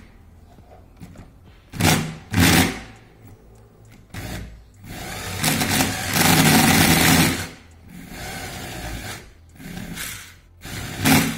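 Small DC motor of an RC car chassis, fed through a homemade ESC, spinning the wheels in bursts of throttle: two short runs about two seconds in, a longer run from about five to seven and a half seconds, and another short burst near the end. It runs strongly under the homemade speed controller.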